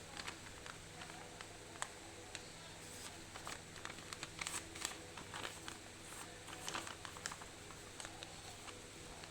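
Sheet of paper being folded and creased by hand: faint, irregular crinkles and small taps, busiest in the middle, over a steady low hum.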